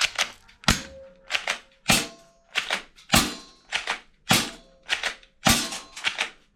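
Toy gun firing a rapid series of sharp cap-gun-like shots, roughly two a second and unevenly spaced, some in quick pairs.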